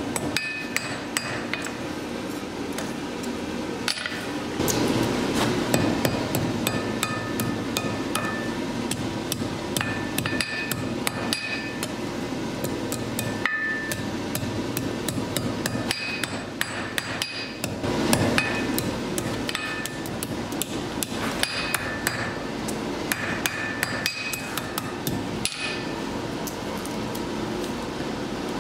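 Blacksmith's hammer striking steel on an anvil: a long run of quick, ringing blows, over a steady rushing noise that grows louder about five seconds in.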